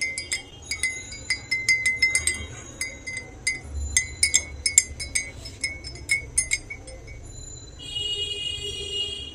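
A spoon stirring tea in a cup, clinking against the sides many times with a short ringing note each time. Near the end the clinks stop and a steady high tone sounds for about a second and a half.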